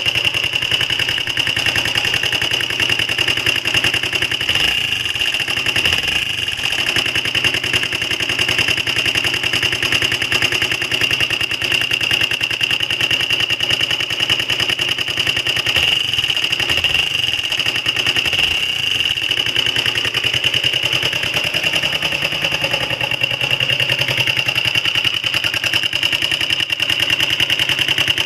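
Honda XL125R's air-cooled single-cylinder four-stroke engine idling steadily with a rapid, even pulsing. The noise is put down to an exhaust leak at the exhaust pipe-to-cylinder head joint, where half the collar is missing and no gasket seems fitted.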